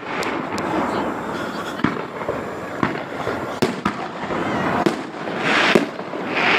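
Fireworks display: shells bursting in sharp bangs about once a second over a continuous crackle, with a louder hissing, crackling rush near the end.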